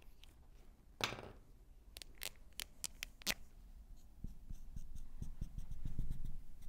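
Dry-erase marker on a whiteboard: one scraping stroke about a second in, a few sharp taps, then a quick run of short ticks as a dashed line is drawn.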